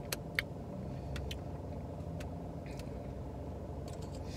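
Steady low hum of an idling car, heard from inside the cabin. Over it come a few short, sharp wet clicks of lips smacking and fingers being licked while eating.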